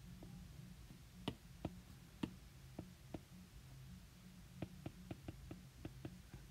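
Light taps of a stylus on a tablet's glass screen while handwriting digits. A few single taps come first, then a quick run of about seven. Under them is a faint low hum.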